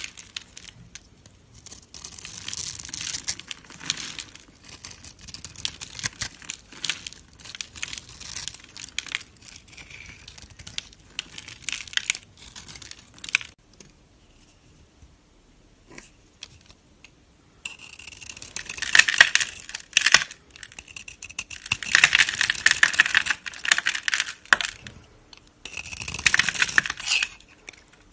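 Blocks of soap being cut, with dense crisp crackling and scraping that comes in runs, louder in the second half with a short near-quiet gap before it.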